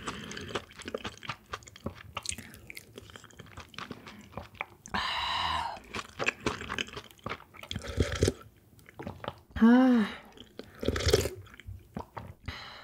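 Close-miked eating: wet chewing with small crunches throughout, a long slurp about five seconds in, and a short hum near ten seconds.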